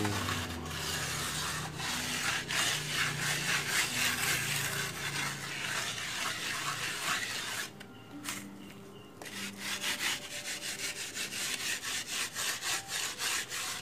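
A wooden plastering float scraping back and forth over fresh cement plaster on a concrete culvert ring, as the render is spread and levelled. The strokes pause briefly about eight seconds in, then come quicker and more regular.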